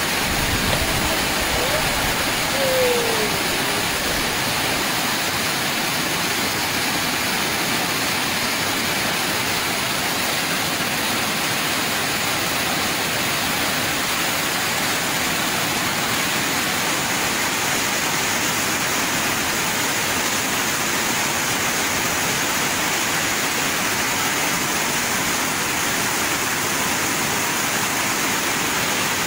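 Muddy floodwater rushing in a fast torrent, a steady dense rush of water. In the first few seconds, people's voices are heard over it, with one short falling shout about three seconds in.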